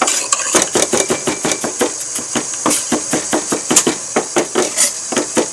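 Kitchen knife rapidly mincing ginger on a wooden cutting board: quick, even chops, about six a second.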